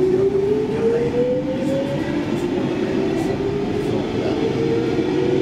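Stockholm Metro C14 train heard from inside the carriage, pulling through the station: the electric traction motors whine, rising in pitch as the train picks up speed, dropping back and climbing again, over a steady rumble of wheels on rail.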